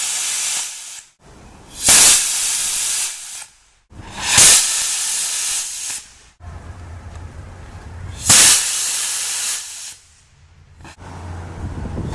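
Small rocket motors firing on a static test stand, one short burn after another: each starts with a sudden loud burst and runs as a steady hiss for about a second and a half before cutting off. One burn ends just after the start, three more follow.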